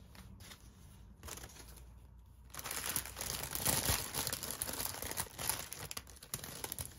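Clear plastic bag crinkling as it is handled: a few faint rustles, then steady, louder crinkling from about two and a half seconds in.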